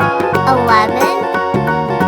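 Cheerful children's background music with a jingly melody and a steady beat. A brief warbling sound effect glides in pitch about half a second in.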